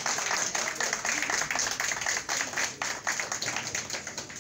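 Audience applauding, many hands clapping rapidly, thinning out near the end.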